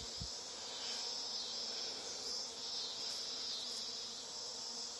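A swarm of honeybees buzzing all around, a steady continuous hum of many bees in flight.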